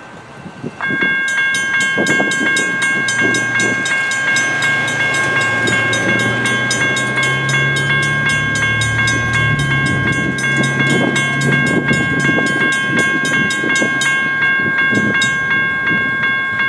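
Railroad grade-crossing warning bell starts about a second in and keeps ringing in a fast, even run of strikes while the crossing gates lower: the crossing has been activated by an approaching train.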